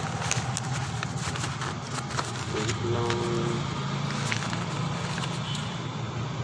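Outdoor background noise: a steady low hum under a hiss, with scattered clicks and crackles close to the microphone.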